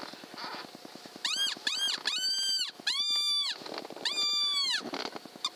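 Hand or electronic predator call squealing to lure a fox: two short high squeals about a second in, then three long drawn-out squeals that rise, hold and drop away.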